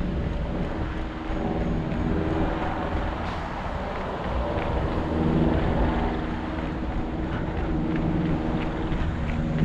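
City street traffic: a motor vehicle's engine running and passing close, louder about halfway through and again near the end, over a steady rumble of wind on the microphone.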